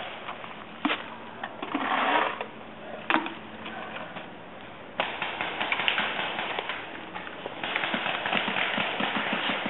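Paintball markers firing in sharp pops, a few single ones first and then a rapid run of clicking pops from about eight seconds in, over the rustle of movement.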